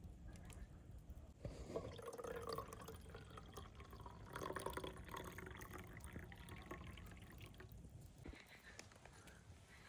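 Liquid pouring and dripping, starting about a second and a half in and stopping about two seconds before the end.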